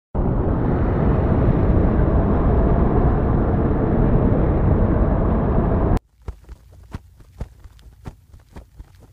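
Loud, dense rumbling eruption sound effect that cuts off suddenly about two-thirds of the way through. It is followed by faint, irregular clicks.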